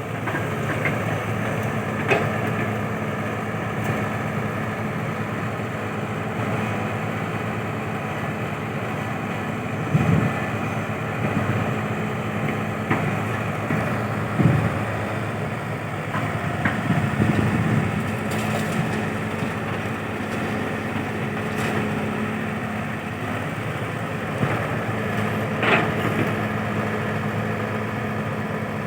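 A steady engine hum, with a few scattered knocks and thumps over it.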